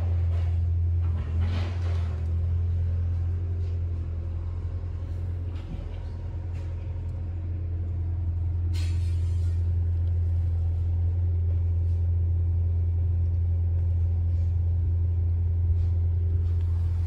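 Volkswagen T-Roc 2.0 TDI on the move: a steady low rumble of engine and road noise, with a short hiss about nine seconds in.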